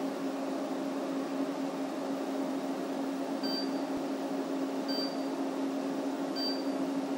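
Copper vapor laser unit running with a steady hum and fan-like noise. Three short high beeps come about a second and a half apart in the second half.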